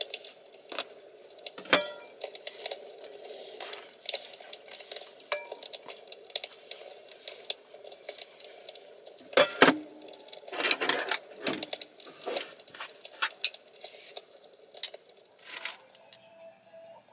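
Dishes, cutlery and cups clinking and knocking irregularly during a meal, over a steady background noise that stops near the end.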